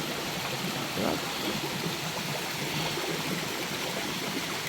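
A stream running over rocks, a steady rush of water.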